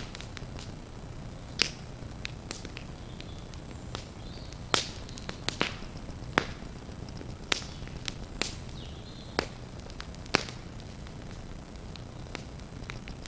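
Burning thatch crackling and popping: sharp, loud snaps at uneven intervals, roughly one a second, with fainter ticks between them, over a steady low rushing noise of the fire.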